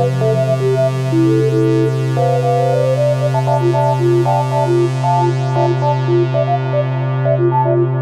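Microtonal electronic synthesizer music tuned to 5-tone equal temperament: a steady low drone held under a busy melody of short synth notes stepping up and down.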